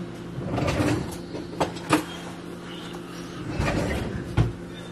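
Utensils scraping and clinking on a plate while cooked chicken is pulled apart. Two sharp clinks come close together about two seconds in and another near the end, between rustling scrapes.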